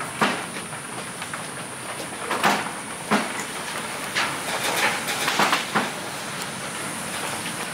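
Goats moving and feeding in hay: irregular rustles and crunches, about seven in all, over a steady high hiss.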